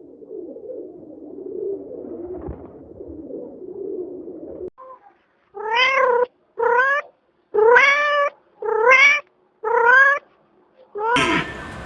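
A cat meowing five times, each call about half a second long and rising then falling in pitch, after several seconds of a low, rough, continuous rumble. A loud cow moo cuts in near the end.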